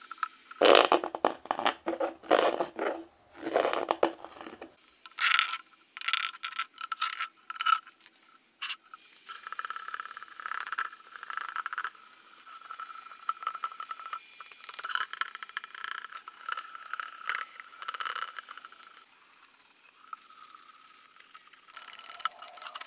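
A hand blade scraping and shaving horn. For the first several seconds it makes separate short cuts, then it settles into quick, nearly continuous scraping strokes along the horn's surface that peel off fine curls.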